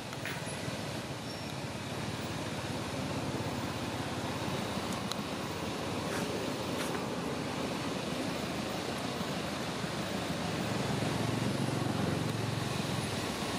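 Steady low outdoor rumble with no animal calls standing out, and a few faint clicks around the middle.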